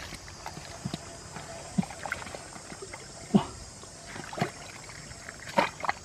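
Wet mud squelching and sloshing in irregular short splats as an arm gropes about in a flooded muddy hole, with a cluster of splats near the end.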